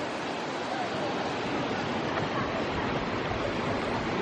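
Small mountain river rushing steadily over rocks.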